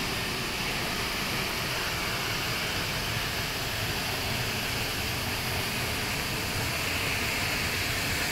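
Steady, even rushing roar of a waterfall.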